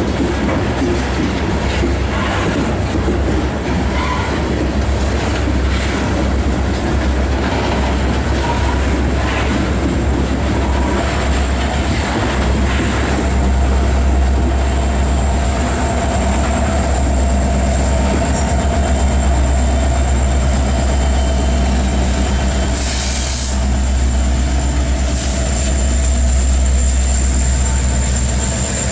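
Loaded coal hopper cars rolling slowly past, steel wheels clicking over rail joints under a heavy low rumble, with a drawn-out wheel squeal in the middle. Then a BNSF EMD SD70ACe diesel-electric locomotive, running as rear distributed power, passes with a deep engine drone.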